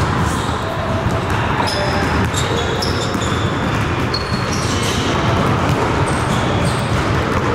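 Several basketballs bouncing on a gym's hardwood floor, echoing in the hall, with short high sneaker squeaks scattered throughout.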